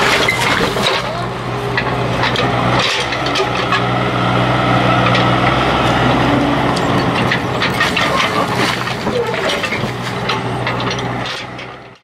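Bobcat E32 mini excavator's diesel engine running steadily while the machine backfills, with scraping and clatter of soil and stones from the bucket. The sound fades out at the very end.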